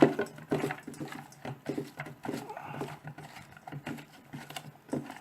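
Onion rings being mixed into a yoghurt-based marinade in a bowl: irregular short wet squishes and knocks, over a faint steady low hum.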